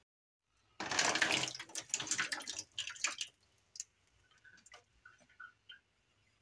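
Thick marinara sauce poured from a pot into a large aluminium foil pan: a loud wet rush for a couple of seconds starting about a second in, then quieter plops and drips as the last of it slides out.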